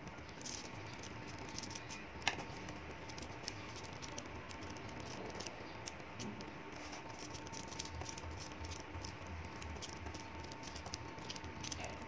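Small magnetic balls faintly clicking and ticking as fingers pull them apart and snap them together into a chain, with one sharper click about two seconds in, over a faint steady hum.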